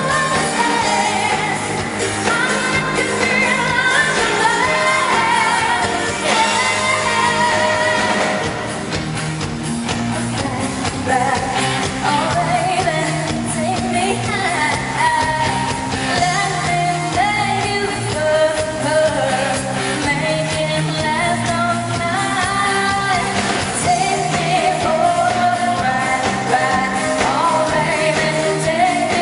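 Live pop performance: a female singer sings over a steady, loud band accompaniment.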